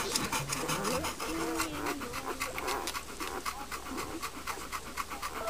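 Chocolate Labrador retriever panting quickly and evenly.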